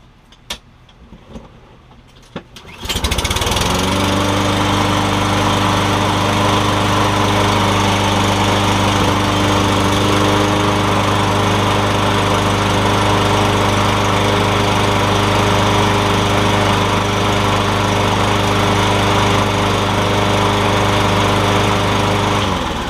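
Toro Recycler lawn mower's Kohler 6.75 single-cylinder engine starts about three seconds in after a few faint clicks. It runs at a steady, even speed and is shut off near the end, winding down. The steady running shows the hard starting and rough running cured by the carburettor cleaning.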